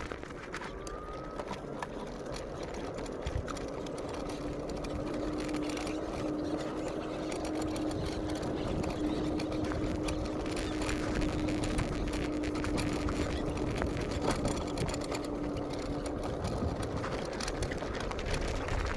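A small motor running steadily, with a held humming tone and light clicking, growing slightly louder.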